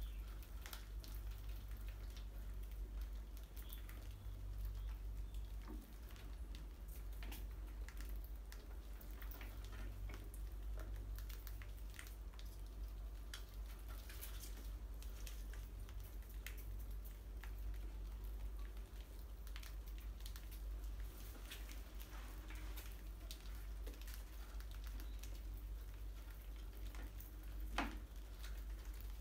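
Small rodents scurrying over a tiled floor and scrambling on glass jars: faint, scattered patter and clicking of claws, with one sharper click near the end, over a steady low hum.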